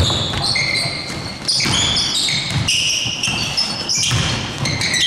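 Basketball shoes squeaking on the court during live play: many short, high squeaks at shifting pitches, overlapping one another, over dull thuds of the bouncing ball.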